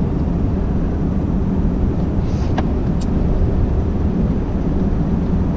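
Steady running noise of a 2017 Ford F-250's 6.7 L turbo diesel truck on the move, engine and tyre rumble with no change in pace, and a couple of faint clicks near the middle.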